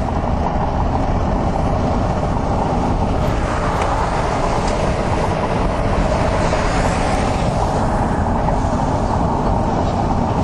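Steady road and engine noise inside a moving car, with a hiss that swells for a few seconds in the middle.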